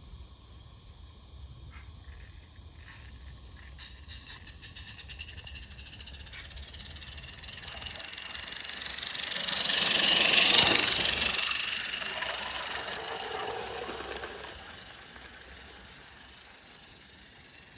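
A 16mm-scale garden railway locomotive and its train running past close by, the sound of the running train growing louder to a peak about ten seconds in, then fading as it moves away.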